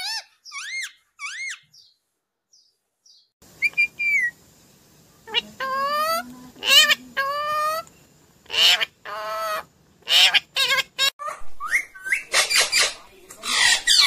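Rose-ringed parakeet calling: a quick run of short arched chirps, a pause of about two seconds, then a varied string of wavering warbled notes and harsh squawks.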